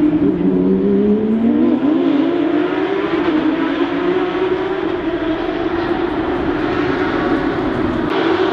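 Porsche Cup race cars' flat-six engines at racing speed, the pitch rising and falling as they accelerate and change gear.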